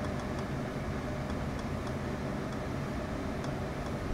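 Steady low hum and hiss of background noise, with a few faint ticks scattered through it.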